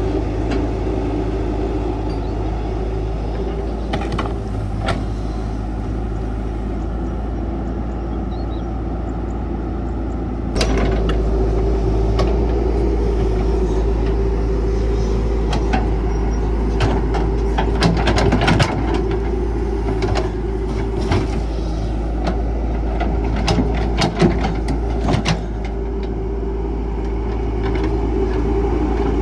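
CAT 312 excavator's diesel engine running steadily with a held whine, its engine note stepping up and louder about ten seconds in as it takes on load. A run of knocks and clanks follows in the second half.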